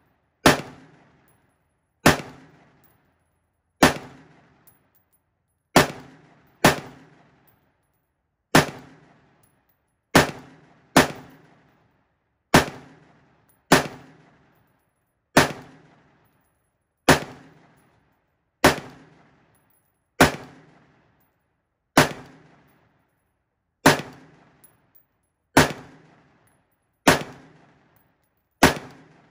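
Unsuppressed LMT MRP external-piston rifle with a 12.5-inch barrel firing 5.56 mm rounds in semi-automatic: about nineteen single shots at a slow, steady pace of roughly one every one to two seconds, each with a short echoing tail.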